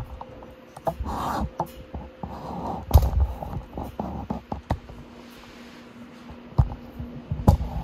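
Handling and movement noise from a person moving around a motorcycle: scattered clicks and knocks, a few heavier thumps, the loudest about three seconds in, and a couple of breathy puffs in the first few seconds.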